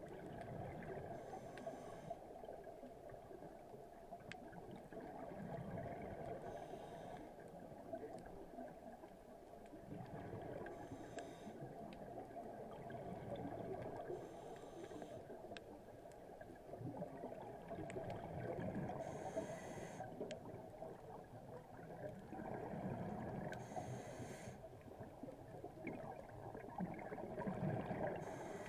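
Scuba regulator breathing recorded underwater: a short hiss of each inhalation through the regulator, then a burst of exhaled bubbles gurgling out, repeating about every 4 to 5 seconds over a steady underwater hiss.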